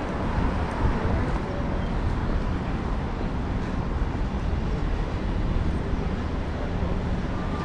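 Steady city street ambience: a low, even traffic rumble with no single sound standing out.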